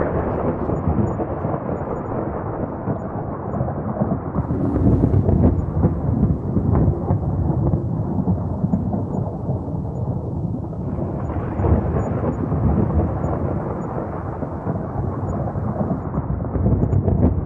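Thunderstorm: continuous low rumbling thunder over a steady hiss of rain, swelling louder about four seconds in, again near eleven seconds and near the end.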